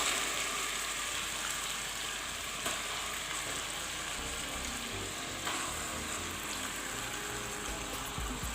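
Tomato curry base sizzling steadily in hot coconut oil in a cooking pan, with a couple of faint knocks of a stirring spoon.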